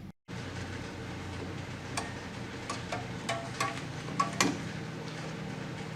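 A handful of light metallic clicks and clinks, a few with a brief ring, as hand tools work on the brake-shoe springs and hold-down pins of a 1964 Dodge D100's front drum brake, over a steady low hum.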